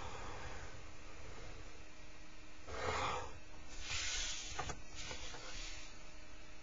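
A blue marker drawn along a plastic set square on paper, heard as a few short strokes of soft scratchy noise, the longest about four seconds in.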